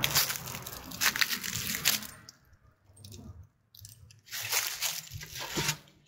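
Footsteps and rustling on loose soil and dry leaves: crunching in two spells, with a quieter gap in the middle.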